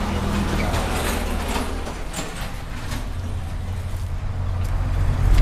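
A low engine rumble, growing louder near the end, with light knocks and plastic rustling as potted plants in plastic bags are set down and picked up.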